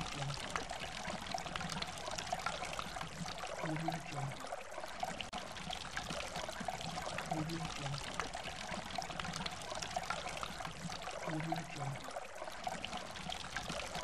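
A forest stream rushing and splashing steadily over rocks and small cascades. A faint low figure of a few short notes repeats about every four seconds.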